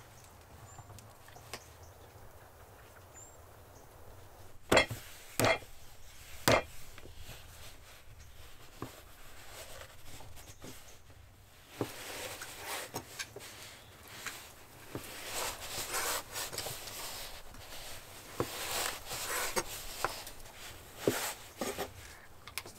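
Hand work at a cooking table: three sharp wooden knocks about five to six and a half seconds in, then rubbing and scraping with scattered knocks.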